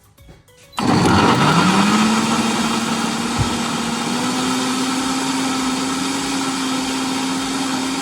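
Countertop blender switched on about a second in, its motor whining up to speed and then running steadily, blending dried chiles de árbol, chipotle peppers, garlic and cilantro with a little liquid into a chile sauce.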